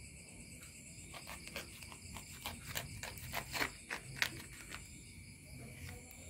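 A knife scoring around the skin of a kendil avocado, heard as a run of short scratchy crackles from about a second in until near the end. Crickets chirr steadily throughout.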